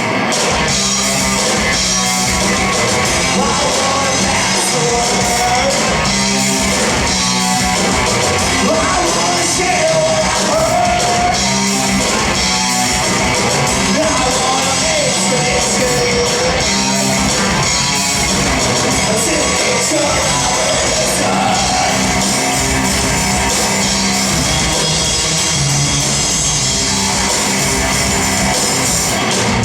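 Live rock band playing loudly in a large room, with a male singer over guitar, bass and drums.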